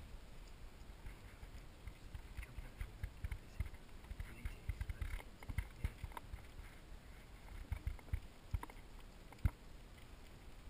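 Dog shifting about right against the camera: faint, irregular rustles and clicks with soft low thumps, and one louder knock about nine and a half seconds in.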